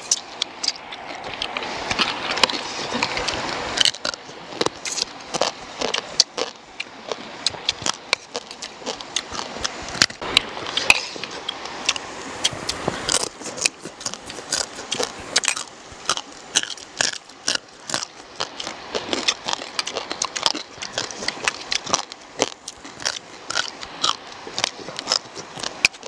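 Close-up eating sounds: crunching and chewing through the shells of cooked field crab, with spoons clicking against plates, in a quick, irregular run of sharp clicks and crunches.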